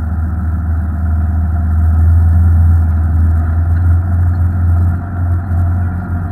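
Off-road vehicle engine running steadily at low speed on a muddy dirt trail, a deep drone that swells slightly about two seconds in.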